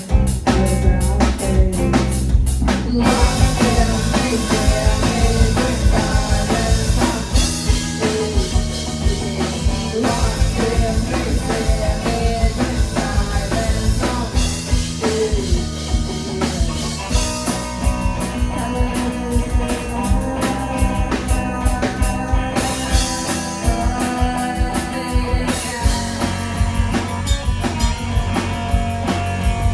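Live rock band playing, with a drum kit keeping a steady beat under guitar; the music gets fuller about three seconds in.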